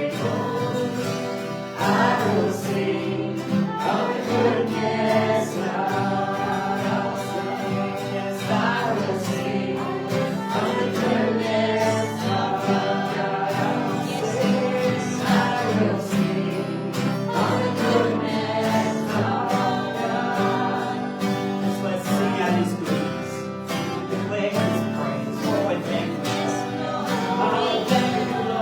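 Worship song: a group of voices singing together over band accompaniment with a steady beat.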